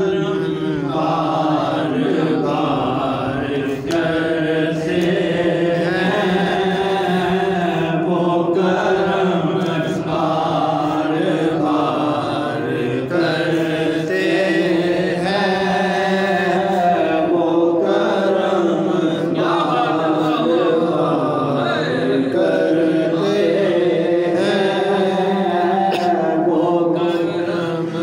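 A man chanting a naat, a devotional song in praise of the Prophet, into a microphone in one continuous, drawn-out melodic line.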